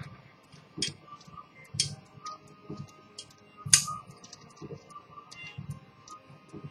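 Antique English fusee pocket watch movement ticking in a quick, even rhythm, with louder clicks about once a second.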